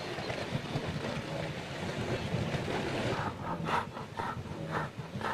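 Herd of wildebeest milling at the water's edge, a dense rumble of movement and grunting; about halfway through, a steady run of short grunting calls starts, about two a second.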